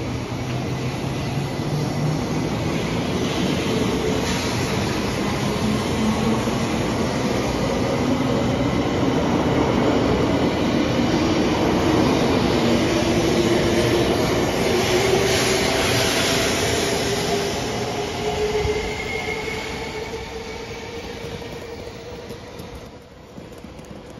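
JR West 700 series 7000 Rail Star shinkansen pulling out and accelerating past: its traction motors whine with several tones rising steadily in pitch over the wheel and rail noise. The sound builds to its loudest about halfway through, then fades as the last cars leave.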